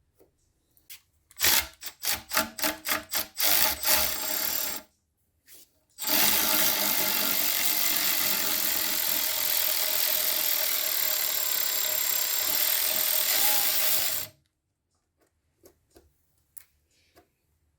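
A quick run of ratchet-like clicking strokes, then a power screwdriver or drill runs steadily for about eight seconds, undoing the screws of the metal timing belt cover on an Alfa Romeo 33 engine. A few light clicks of handling follow.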